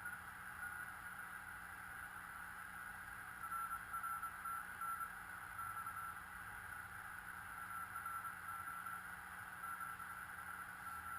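Receiver audio from a QRP CW transceiver tuned to 7.023 MHz in the 40 m band: a steady band of filtered hiss with faint Morse code tones keyed on and off through it. There is also a low steady hum.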